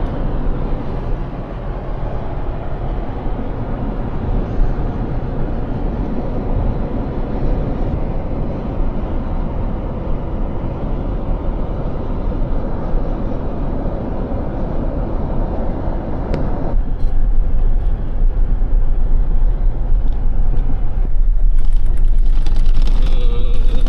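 Steady road and engine rumble of a truck driving at speed. About 17 seconds in the sound changes and gets louder.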